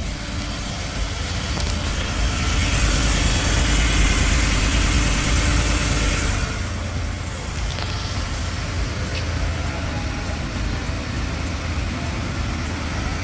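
Ford F-150 engine running steadily with no metallic grinding between engine and transmission: normal noise, now that the new separator plate keeps the torque converter studs from rubbing. A louder rushing sound rises over it from about two to six seconds in.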